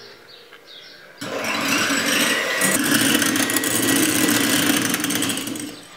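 Electric hand mixer starting up about a second in and running steadily, its twin beaters whisking egg whites in a bowl, then switching off just before the end.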